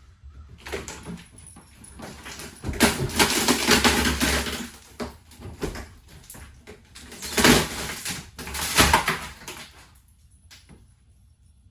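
A plywood floor board in a school bus being pried up with a big pry bar: wood creaking and scraping, with knocks. There are two loud spells, about three seconds in and again about seven seconds in.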